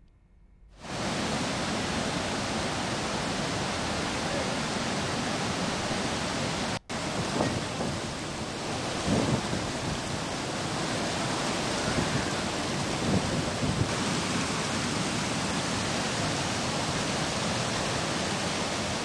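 Rushing floodwater: a loud, steady rush of water with low rumbles running through it. It starts about a second in and cuts out for an instant about seven seconds in before carrying on.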